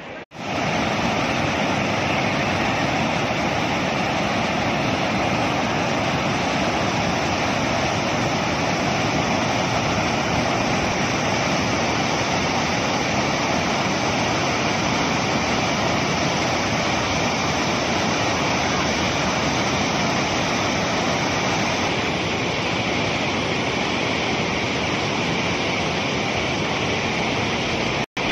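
Fast mountain river rushing over rapids: a steady, loud roar of white water that cuts out briefly near the end.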